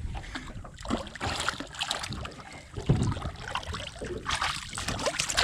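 Water splashing and sloshing around a small fishing boat, with irregular knocks and bumps on the hull and tackle.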